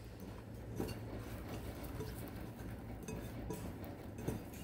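Bread cubes being tossed by hand in a glass mixing bowl: quiet rustling with a few faint light taps, over a steady low hum.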